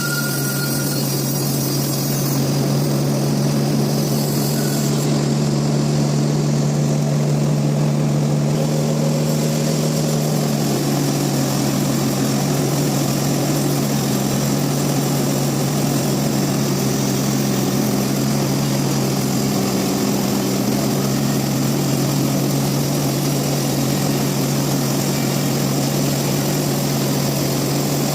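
Sawmill machinery running steadily: a constant low engine-like hum with a hiss over it.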